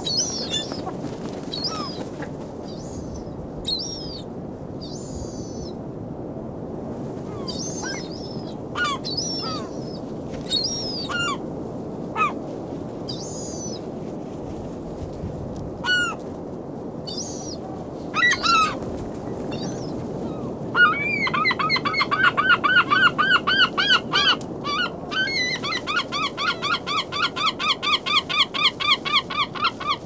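Gulls calling over a steady wash of surf: scattered single cries for the first twenty seconds, then a gull gives a long run of rapidly repeated calls, about six a second, twice near the end.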